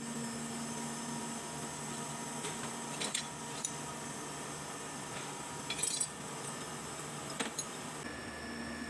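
Pieces of scrap steel clinking and knocking together as they are rummaged through in a crate, a few sharp clinks about 3, 6 and 7.5 seconds in, over a steady background hum.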